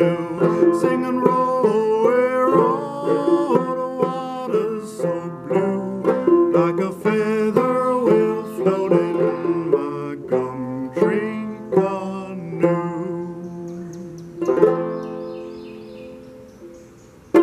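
Fretless minstrel banjo playing an instrumental passage of quick plucked notes that thins out. About two-thirds through, a chord is struck and rings away, and another stroke lands at the very end.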